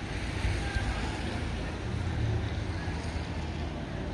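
Wind buffeting the microphone: a low, uneven rumble under a steady hiss.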